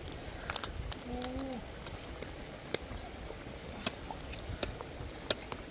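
Crab soup boiling in a wok over a wood fire, with sharp crackles from the burning wood every second or so. One short cooing call comes about a second in.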